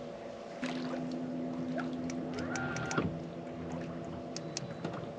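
A boat motor's steady hum, with a stronger tone that comes in under a second in and holds for about two seconds, then a few light clicks and knocks.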